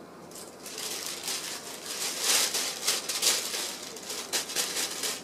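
Thin plastic bag crinkling and rustling in irregular bursts as a cat paws and noses at it. The crinkling starts about half a second in and is loudest in the middle.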